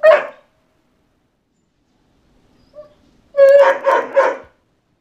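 A dog barking: one sharp bark at the start, a faint yip near the middle, then a quick run of three high barks.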